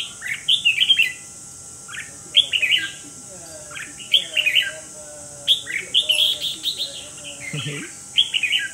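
Red-whiskered bulbul giving about six bursts of rapid, harsh chattering calls, each under a second long with short pauses between: the chatter that bulbul keepers call 'ché'.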